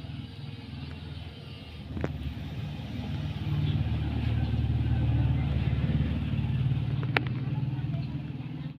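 A low, rapidly pulsing rumble that grows louder about three and a half seconds in, with two sharp clicks, one about two seconds in and one near the end.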